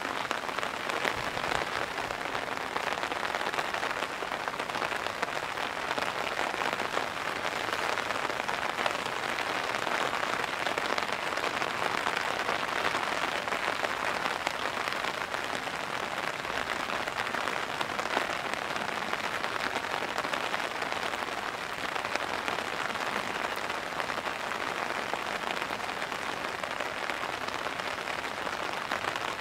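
Heavy pouring rain falling steadily on surfaces.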